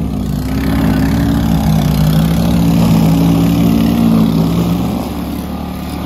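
Single-stage walk-behind snow blower running, a steady motor hum that wavers slightly in pitch as it throws snow.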